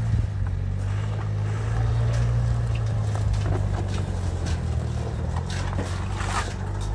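An engine idling steadily, a low, even hum.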